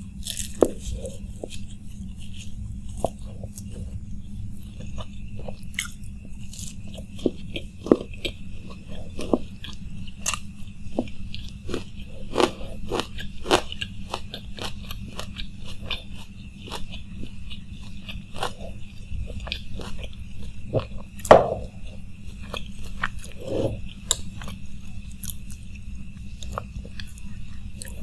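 Close-miked chewing of a mouthful of fuchka (pani puri), with many small crisp crunches and wet mouth clicks throughout and one louder crunch about two-thirds of the way in. A steady low hum runs underneath.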